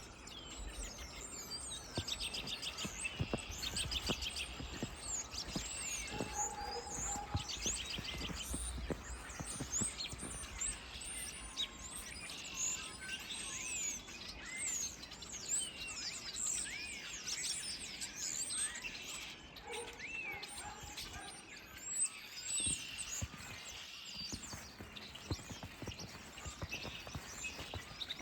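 A flock of small birds chirping and twittering continuously, with quick trills now and then. Two short, lower calls come in, about a quarter of the way in and again past two-thirds.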